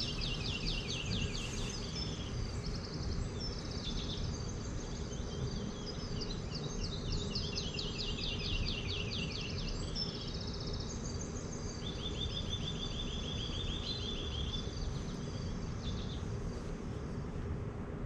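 Forest ambience: several songbirds singing in quick runs of chirps, one after another, over a steady high whine and a low rumble.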